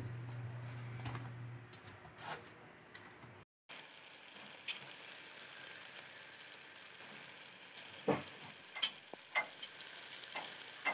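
Octopus adobo with long green chilies simmering in an aluminium pot: a faint, steady bubbling sizzle with scattered small pops and clicks. A low hum is heard in the first couple of seconds, before a cut.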